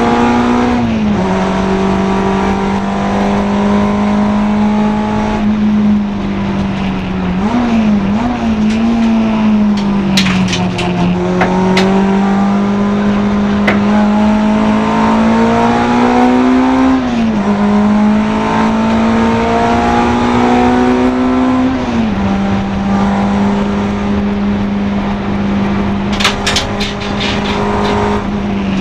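Honda Integra DC2 race car's four-cylinder engine running hard at high revs. The pitch climbs slowly and falls sharply twice past the middle as the car changes up a gear. Quick rev blips come about eight seconds in and again near the end, and a few short sharp clicks are heard.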